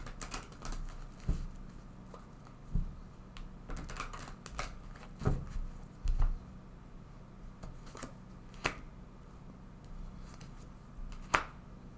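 A tarot deck being handled: cards shuffled, drawn and laid down on a table. It makes irregular crisp taps and flicks, a few soft thumps about five and six seconds in, and one sharp snap near the end.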